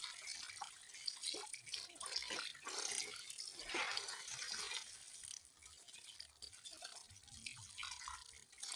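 Water dripping and splashing, irregular drops over a light hiss.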